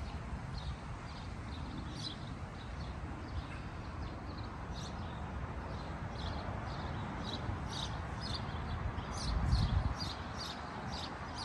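Small birds chirping with many short, quick high calls, thickening over the second half, over a low rumble on the microphone that swells briefly about nine and a half seconds in.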